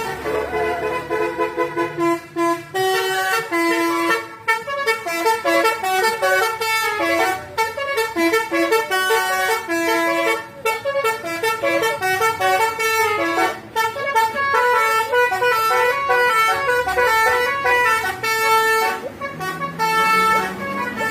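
Telolet bus horn playing a melody: a quick run of short, loud horn notes jumping between pitches. A rising tone comes in near the end.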